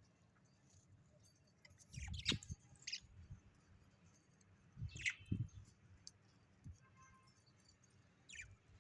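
A bird giving short, sharp chirps a few seconds apart: two about two seconds in, one about five seconds in, and a quick call falling in pitch near the end. Dull low knocks come alongside the first calls.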